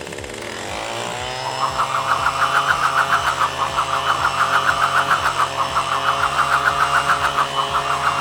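Toy leaf blower playing its electronic engine sound: it revs up in pitch over the first second, then runs with a steady, rapid pulsing.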